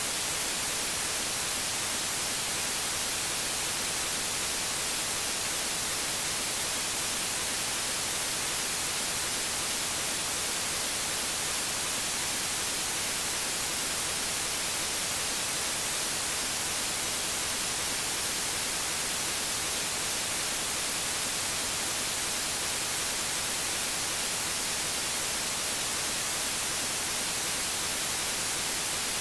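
Steady electronic hiss of static, even and unchanging, with no other sound in it.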